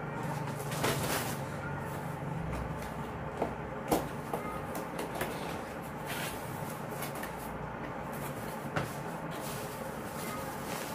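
Packing paper and tissue paper rustling and crumpling as cardboard helmet boxes are handled, with a few short sharp knocks as the boxes are moved, over a steady low hum.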